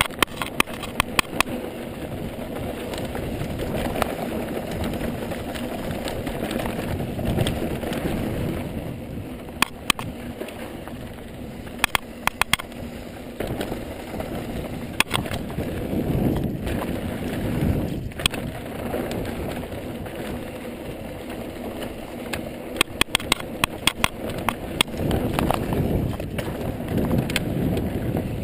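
Ibis mountain bike rolling down a dry dirt singletrack: steady rumble of tyres and wind on the microphone, swelling and easing, broken by bursts of sharp rattling clicks from the bike over bumps.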